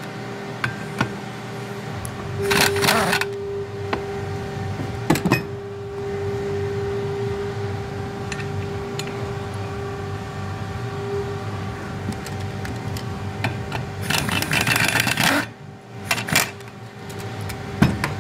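Impact wrench run in two short bursts, about three seconds in and again near fifteen seconds, snugging the Torx bolts of a snowmobile secondary clutch, with small metallic clicks of bolts and tools between them over a steady hum.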